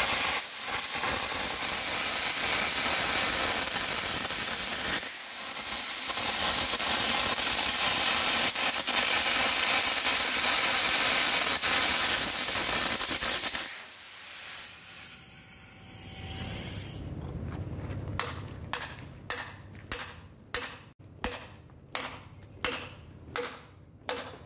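Carbon air arc gouging: the compressed-air jet and arc hissing loudly as the gouging rod cuts a groove in a seized steel nut on a hydraulic cylinder rod, with a brief break about five seconds in. The gouging stops about fourteen seconds in, and near the end comes a run of about a dozen sharp knocks, roughly two a second.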